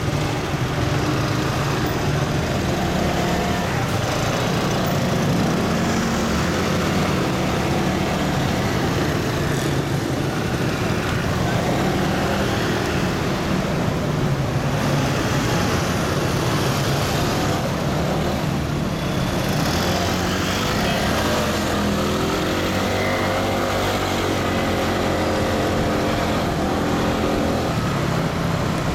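Motorcycle engine running under the rider, mixed with the steady noise of surrounding city traffic of cars and scooters; the engine pitch rises and falls several times about twenty seconds in as it pulls away and slows.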